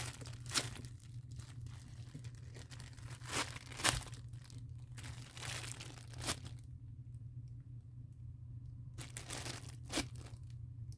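Soft foam squishy toy being handled and squeezed, giving scattered light crinkling and crackling handling noise over a steady low hum.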